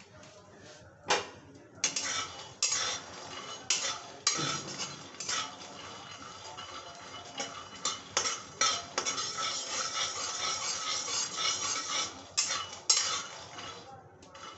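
Raw peanuts being dry-roasted in a metal kadai and stirred with a metal spatula: the spatula scrapes and clanks against the pan and the nuts rattle over the metal. It starts about a second in, with repeated sharp clanks among the scraping.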